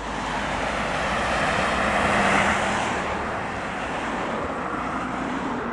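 Cars driving slowly out of a junction: engine and tyre noise that swells to a peak about two seconds in and then eases off.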